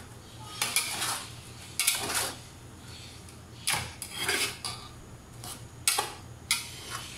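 A metal fork and ladle scraping and clanking against a large aluminium pot as pancit noodles are tossed. The strokes come irregularly, about one or two a second, in uneven pairs.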